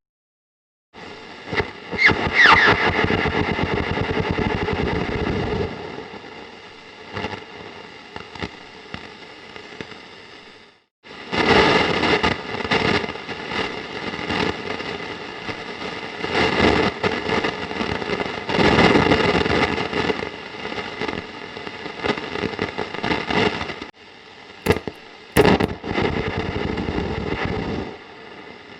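Antique tube radio hissing and crackling with static, with a brief whistle about two seconds in. The static cuts out for a moment around eleven seconds and then comes back. Two sharp clicks sound near twenty-five seconds.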